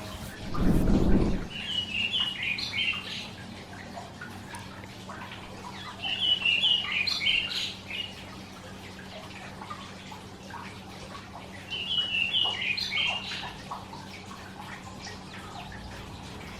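Karoo thrush singing three short warbled phrases of high whistled notes, about four to five seconds apart, with faint chirps between them. A brief low rumble comes about half a second in, just before the first phrase.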